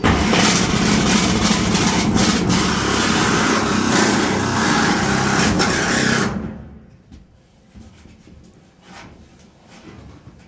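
Electric jigsaw cutting a circle through a corrugated metal sheet, running loud and steady, then stopping a little after six seconds in. A few faint taps follow.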